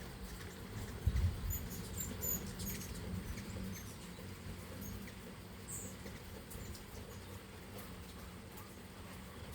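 Hummingbirds at a busy sugar-water feeder giving short, very high squeaky chips, several in the first three seconds and one more about midway, over a low background rumble.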